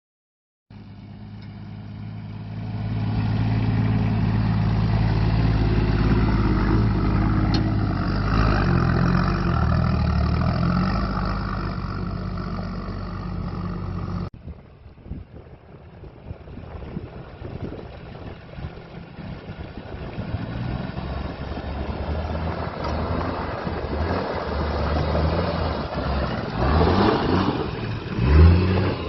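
Nissan Patrol's TD42 diesel inline-six running steadily. About halfway the sound cuts to a rougher, uneven run, and near the end the engine is revved in a few rising pulls.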